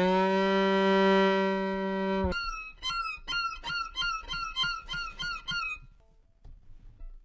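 Animal calls: one long, steady, low call that ends abruptly about two seconds in, followed by a quick run of short, high, squeaky calls, each dropping in pitch, about three a second.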